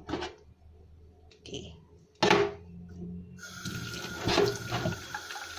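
A metal can knocking and scraping in a stainless steel sink, with one sharp knock just over two seconds in; about three and a half seconds in the kitchen tap is turned on and water runs steadily into the sink.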